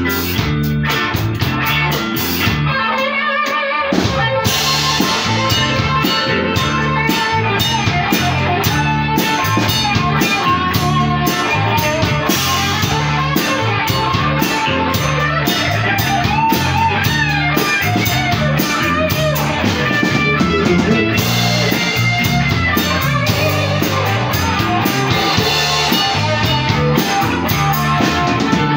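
Live rock band playing an instrumental passage on two electric guitars, electric bass and drum kit. The band drops out briefly about three seconds in, then comes back in.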